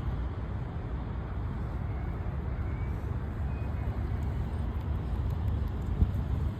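Steady low rumbling noise with no clear pitch, and a single sharp thump about six seconds in.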